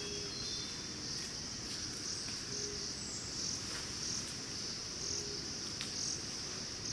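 Steady, high-pitched buzzing of an insect chorus, swelling in regular pulses about once or twice a second.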